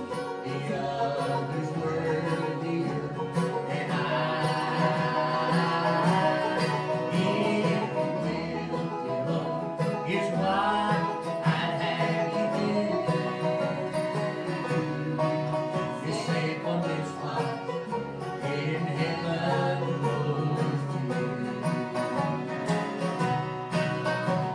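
Live acoustic string band playing bluegrass-style music: upright bass plucking a steady line under bright plucked string instruments.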